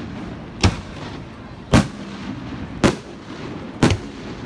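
Aerial fireworks shells going off: four sharp booms about a second apart.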